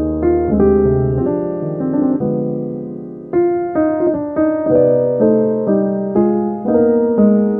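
Background piano music: single notes and chords struck and left to fade, with a fresh run of notes starting about three seconds in.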